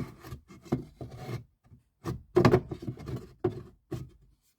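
Hard plastic trim knocking, rubbing and clicking as the cabin air filter housing's shelf behind a 2012 Acura TL's glovebox is pushed back into place by hand. A string of irregular short knocks, with the loudest cluster about two and a half seconds in.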